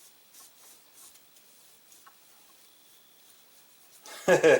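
Faint light rubbing and a few small clicks of hands handling a gun and its wooden forend stock, then a man's voice comes in near the end.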